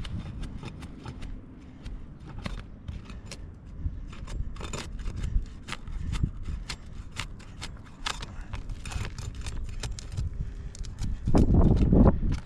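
Irregular clicks and scrapes of a hand tool prying at asphalt 3-tab shingles, breaking the sealant bond and working at the fasteners. Near the end a gust of wind rumbles on the microphone.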